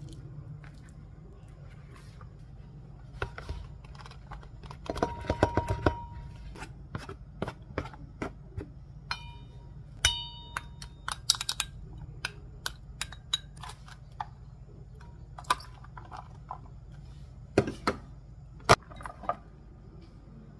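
Kitchen food-prep handling: a knife tapping quickly as it minces raw pork about five seconds in, then scattered clinks and knocks of utensils and food against a stainless steel pot and bowls, a few of them ringing briefly.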